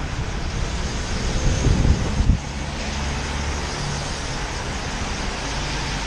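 City traffic on a rain-wet street: a steady hiss of tyres on wet pavement with the low hum of car engines passing close by. A louder low rumble builds and cuts off suddenly about two seconds in.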